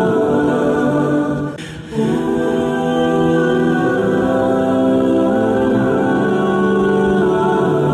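Music with a choir of voices singing long held chords. The sound dips briefly about a second and a half in.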